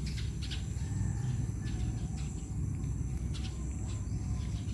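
Outdoor ambience: insects calling steadily at a high pitch over a low rumble, with a few faint clicks.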